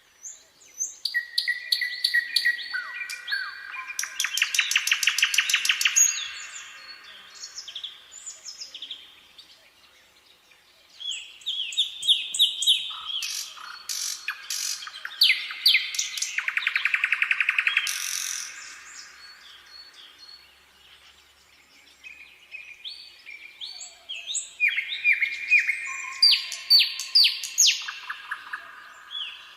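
Nightingale singing: three phrases of varied whistles and rapid rattling trills, each a few seconds long, with short pauses between them.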